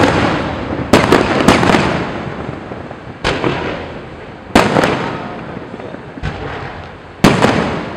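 Aerial firework shells bursting close overhead: about six loud booms at uneven intervals, two of them in quick succession, each trailing off in a long fading rumble.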